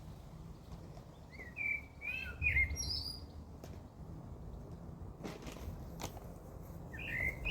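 A small songbird chirping and singing in short, quick phrases, one burst about a second and a half in and another near the end, over a steady low rumble.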